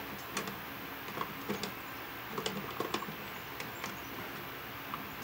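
Light, irregular clicks and taps of stiff copper house wires being pushed and bent into a plastic electrical outlet box by hand.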